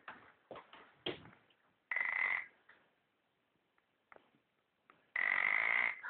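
A sleeping shih tzu snoring: two loud snores about three seconds apart, each carrying a high whistling note, with a few short, faint breath sounds between.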